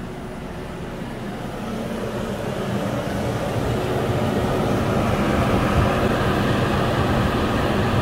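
Dometic rooftop RV air conditioner, a 13,500 BTU unit, running steadily as it blows cold air: an even mechanical hum that grows gradually louder as the listener comes in under the ceiling unit.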